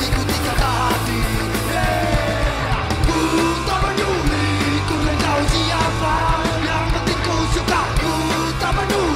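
Loud punk rock song with yelled, sung vocals over a full band.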